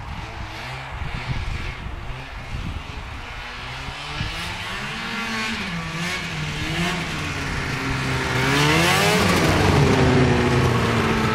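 1992 Mach 1 snowmobile's 521 two-stroke engine revving up and down as the sled approaches, growing louder. Near the end it climbs to a high rev and drops in pitch as it passes close by.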